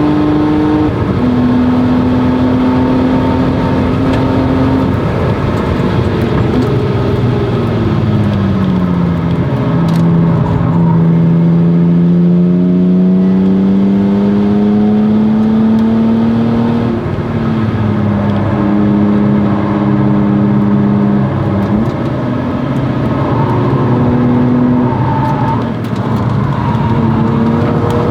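1997 BMW E36 M3's straight-six engine through a Stromung cat-back exhaust, running hard on track. Its pitch drops steadily a few seconds in, then climbs for several seconds under acceleration. It steps down in pitch and holds level, with further changes in revs near the end.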